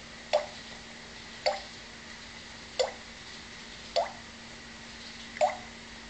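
African grey parrot making a run of five short clicks, each with a brief low tone, evenly spaced a little over a second apart.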